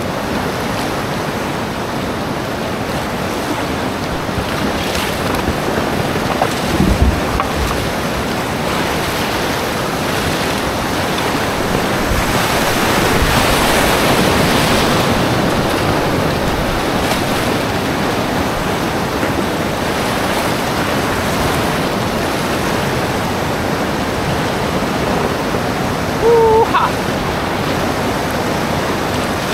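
Steady rush of whitewater from a rocky river rapid, heard from a boat running it, growing louder about halfway through as the boat drops through a big foaming wave. A brief thump comes about seven seconds in.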